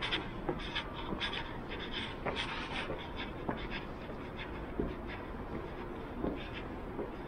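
Footsteps of someone walking up marble stairs: short, irregular taps and scuffs over a steady low background hum.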